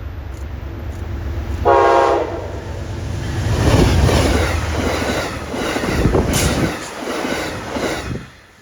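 A train passing close by: a short horn blast about two seconds in, then the loud rumble and clatter of the train going past, which cuts off suddenly near the end.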